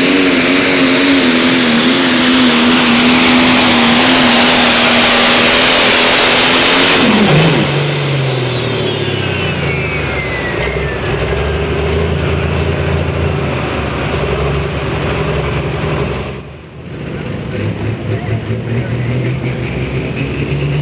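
Turbocharged diesel pulling tractor running at full throttle under load, its pitch wavering. About seven seconds in the throttle is cut: the engine drops to a low, uneven idle while the turbocharger whistles down over several seconds. Near the end the engine revs up again.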